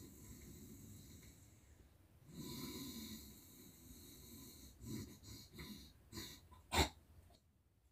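Soft breathing of a person lying in bed, with a long breath about two and a half seconds in, followed by several short sounds and a sharper, louder one near the end.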